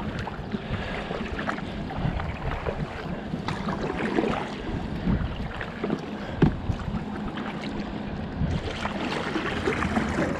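Kayak paddle strokes: the blades dipping and splashing in the water with scattered drips, and water washing along the folding kayak's hull.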